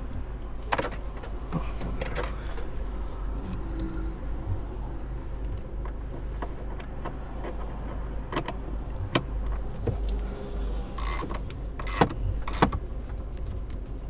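Scattered clicks and light knocks from hands working a car's steering wheel and keys inside the cabin, over a steady low hum; two sharper clicks come near the end.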